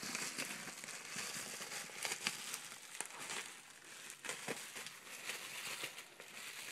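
Packaging crinkling and crackling as it is handled and unwrapped from a framed print, with many small clicks and rustles.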